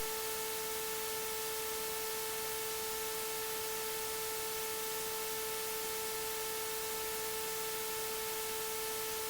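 A steady electronic hum at one fixed pitch with its overtones, over faint static hiss, unchanging throughout.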